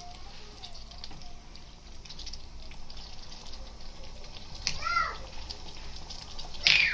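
Thick chicken kadai gravy cooking in a pan, bubbling with a steady run of small pops. A short high cry rises and falls about five seconds in, and a louder cry comes near the end.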